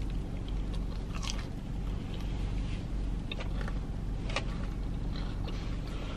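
Close-up biting, crunching and chewing of a crumb-coated Korean fried mozzarella stick, with a few crisp crunches standing out over a steady low hum.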